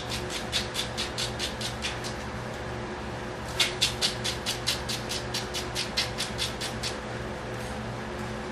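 Thin carbon-fibre rod being sanded on 120-grit sandpaper in quick, even back-and-forth strokes, about four a second, rounding off its ends. The strokes stop for about a second and a half a couple of seconds in, then resume, and stop again near the end.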